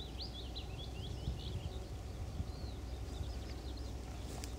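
Small songbirds chirping in quick runs of short high notes over a steady low rumble.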